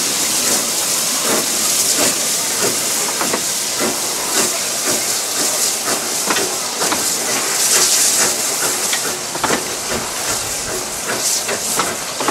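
Narrow-gauge steam tank locomotive pulling away with its train: steam hissing steadily, with a run of short exhaust beats.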